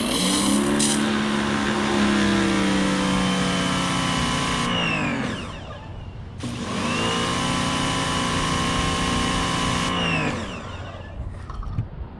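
Blue Clean 2000 PSI electric pressure washer running with the hiss of its spray, twice: it starts up, runs steadily for about five seconds and spins down, then starts again about a second later, runs about four seconds and spins down again as the trigger is released. The found machine is working.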